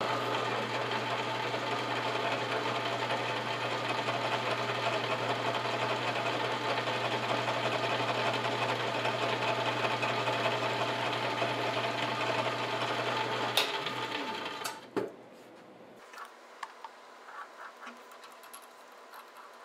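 Milling machine spindle running steadily with a low hum while a center drill works into a metal plate. The motor is switched off about 14 seconds in and winds down with a click or two, leaving only a few light clicks and handling sounds.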